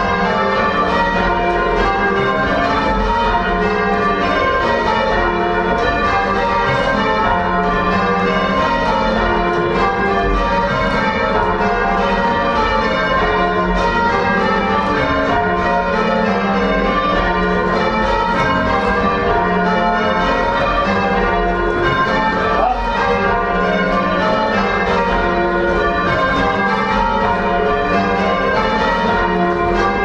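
Church bells rung full-circle in change ringing, part of a quarter peal: a steady, unbroken run of overlapping strokes, heard loud and close from inside the bell chamber.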